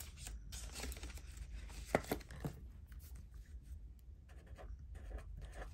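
Cash envelopes and banknotes being handled: faint rustling and sliding, with two light clicks about two seconds in.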